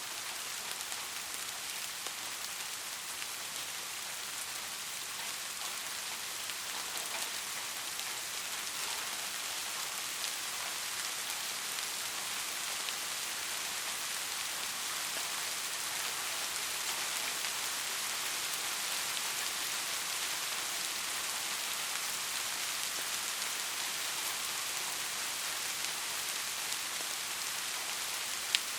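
Steady rain falling, an even hiss of many drops without a break, with a single sharp drop click near the end.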